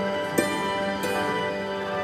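Instrumental background music with held, sustained tones and a sharp note attack about half a second in.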